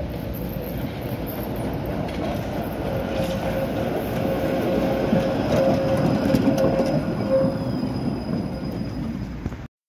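Coupled two-car tram coming round a curve and running past close by, its rumble growing as it nears. The wheels squeal steadily on the curve from about three seconds in until past the middle.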